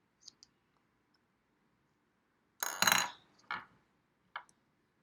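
Hard plastic Play-Doh tools clicking and clattering as they are handled and set down: a few light clicks, a louder clatter near the middle, then two smaller knocks.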